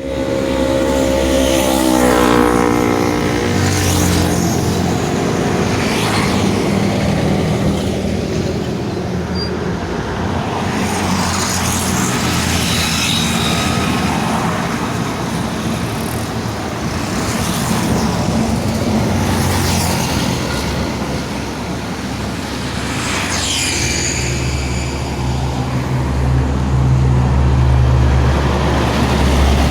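Highway traffic with large vehicles passing close by: steady engine and tyre noise with several brief rushes as vehicles go past. In the first couple of seconds a pitched engine or horn sound drops in pitch as it passes, and near the end a low engine hum holds steady.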